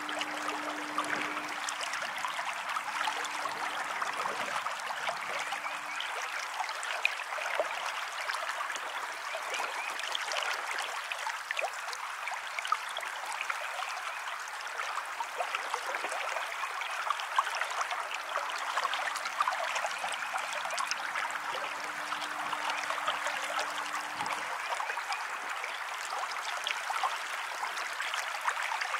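River water running and babbling steadily.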